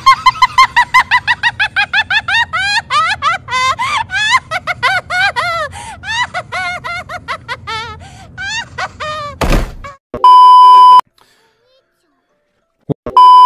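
A long run of very high-pitched, sped-up laughter, about four or five 'ha's a second, slowing and dropping in pitch, cut off by a sharp thump. Then a one-second censor bleep, a short silence, and a second bleep near the end.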